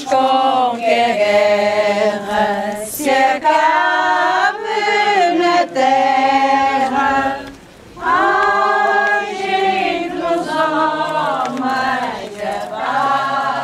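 A crowd of procession walkers singing a religious hymn together in long held notes, with a brief pause for breath about eight seconds in.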